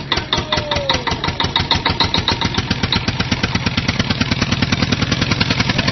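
Tractor engine idling with a fast, even chugging beat.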